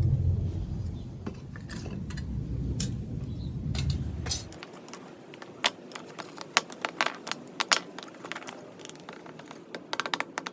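A low rumble that cuts off suddenly about four and a half seconds in, followed by a run of light, irregular metallic clinks and clicks.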